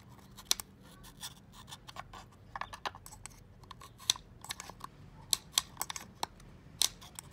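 Small screwdriver tip clicking and scraping against the plastic housing of an EGR venturi pipe cover while prying O-rings out of its holes: irregular sharp clicks and scratches, the sharpest about half a second in and near the end.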